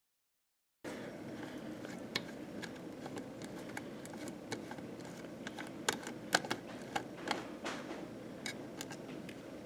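Scattered light clicks and taps of hands working loose a laptop's hard drive and handling the parts inside the opened case, over a steady low hum. The clicks come thickest about two-thirds of the way through.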